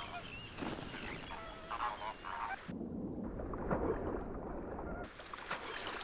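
American flamingos calling: a few short honking calls over a soft wash of outdoor ambience.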